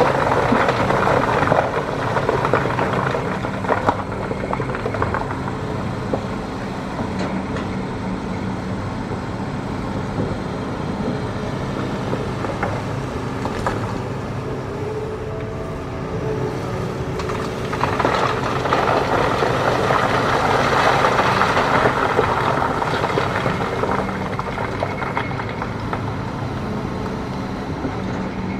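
Hitachi ZX210 hydraulic excavator's diesel engine running steadily, rising louder under hydraulic load near the start and again from about 18 to 24 seconds in. A few sharp knocks come in the first few seconds, typical of the bucket working hard rock.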